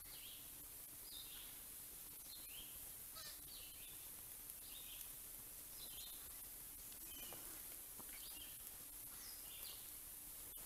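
Faint songbird calls outdoors: short, falling chirps repeating roughly once a second over a steady background hiss.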